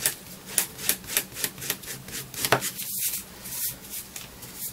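Spatula rubbing back and forth over the flesh side of vegetable-tanned leather, spreading and smoothing Tokonole into the fibres: quick scraping strokes, about four a second.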